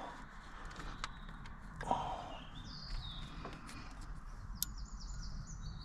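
Quiet background with birds chirping in short repeated trills, scattered sharp clicks and knocks of parts being handled, and a brief louder rustle about two seconds in.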